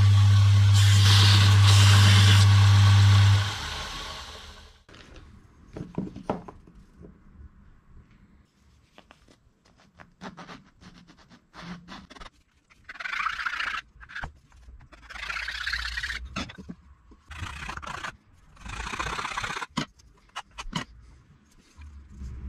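A power tool runs with a steady hum and stops a few seconds in. Then come workshop handling noises: clicks, knocks and several separate hissing or scraping passages of about a second or more each.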